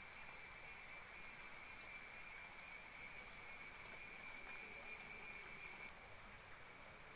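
A steady high-pitched insect chorus buzzing without a break. It drops suddenly to a softer level near the end.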